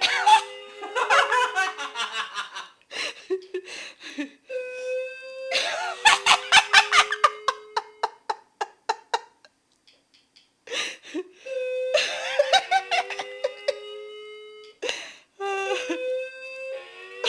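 A wireless doorbell with a dying battery sounding its chime several times as a drawn-out tone that sags in pitch, the sign of a nearly dead battery. People laugh in bursts over each chime.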